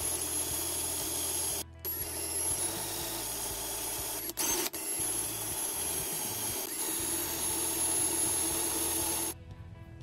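Cordless drill running steadily as it drills out the pivot pins of a 58 mm Victorinox Swiss Army knife to take it apart. It stops briefly just before two seconds in and again around four and a half seconds in, then cuts off shortly before the end.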